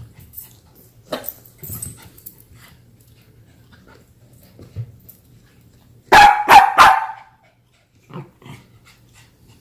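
Cavapoo puppy barking three times in quick succession about six seconds in, with only faint small sounds before and after.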